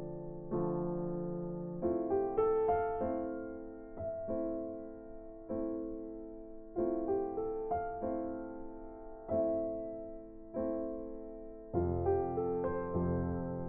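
Slow, gentle piano music: a new note or chord is struck a little over once a second and left to ring and fade.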